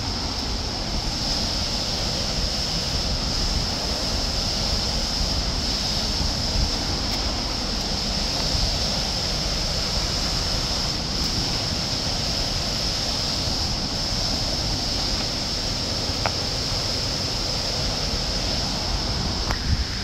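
Steady rushing roar of a waterfall crashing into its plunge pool, with low wind rumble on the microphone.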